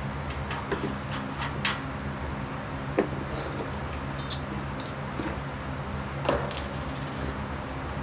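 Steel power-rack parts and bolts being handled during assembly: scattered clinks and knocks of metal on metal. The loudest knock comes about three seconds in and another a little after six seconds, over a steady low hum.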